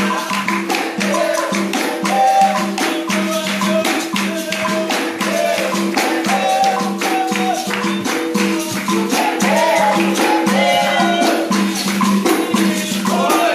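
Capoeira music: berimbaus, led by the low gunga, with caxixi rattles and a pandeiro keeping a steady rhythm, and voices singing over them.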